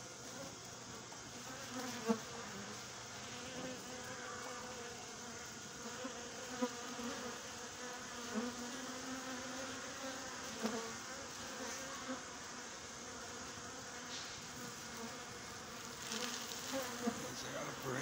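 Honeybees buzzing at the hive entrance: a steady hum with brief louder swells as single bees fly close past, several times.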